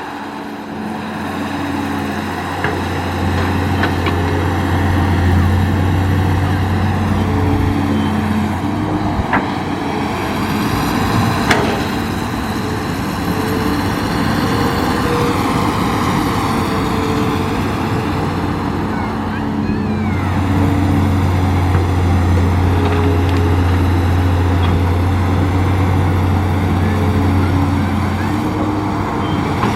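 Hitachi hydraulic excavator's diesel engine running and working, its low drone swelling under load in two long spells. Two or three sharp knocks come partway through.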